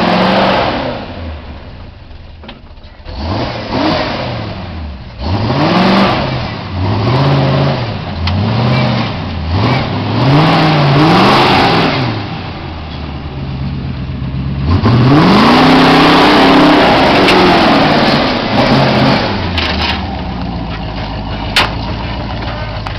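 Jeep CJ-7 Renegade's 360 cu in (5.9 L) V8 revving hard under load as it climbs a steep dirt slope: a run of short blips rising and falling, one longer high rev about two-thirds through, then a steadier lower note near the end. A single sharp click sounds shortly before the end.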